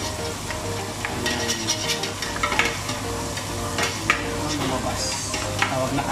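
Sliced onions and tomatoes sizzling in oil in a stainless steel stockpot as a metal ladle stirs them, with sharp scrapes and clinks of the ladle against the pot now and then.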